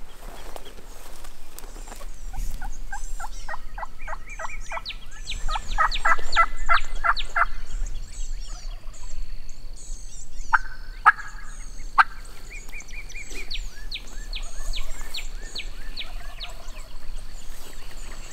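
Wild turkeys calling: several rapid series of evenly spaced notes, gobbling from toms. Two sharp cracks stand out near the middle.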